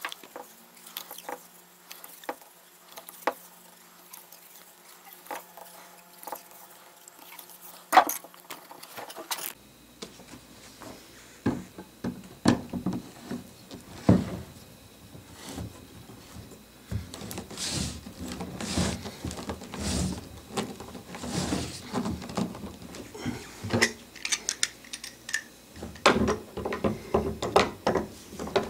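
Handling noises of PVC fittings and brass ball valves being fitted together: scattered clicks, taps and knocks of plastic and metal parts, with one sharp click about eight seconds in and busier rattling and tapping in the second half.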